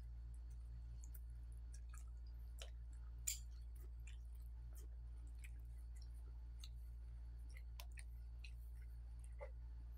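Close-up eating sounds of people eating by hand: faint chewing with scattered wet mouth clicks and smacks, one sharper click about three seconds in, over a steady low hum.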